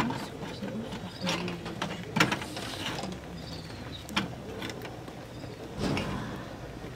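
Metal cooking utensils scraping and clinking against pans on a wood-fired clay stove: a string of irregular clicks and knocks, the loudest about two seconds in.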